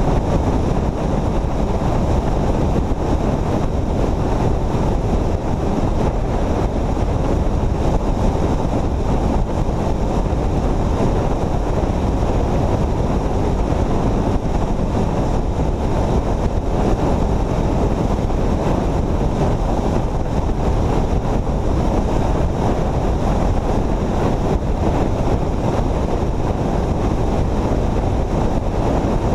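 Steady wind rush over the microphone mixed with tyre and road noise from a vehicle travelling at highway speed.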